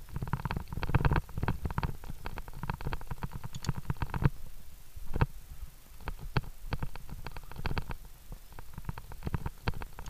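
Muffled knocking, rubbing and clicking picked up by a worn PNJ Cam 23 action camera as the climber moves along the steel cable and rungs of a via ferrata, in quick irregular succession with a heavy low rumble underneath.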